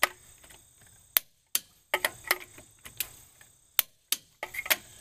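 Torque wrench on a truck wheel's lug nuts: about a dozen sharp metallic clicks at uneven spacing, the wrench clicking over at its set torque as each lug nut is checked.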